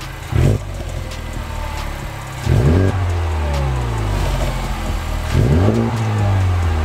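Honda Civic Type R (FK8) 2.0-litre turbocharged four-cylinder on its stock exhaust, revved from idle: a short blip about half a second in, then two fuller revs about two and a half and five seconds in, each winding back down slowly. It sounds quiet, mostly engine noise rather than exhaust tone.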